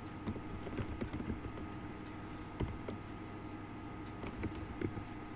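Typing on a computer keyboard: scattered, irregular keystroke clicks as a short command is typed, over a faint steady hum.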